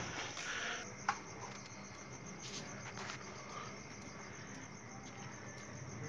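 Crickets chirping faintly and steadily, with a single sharp click about a second in.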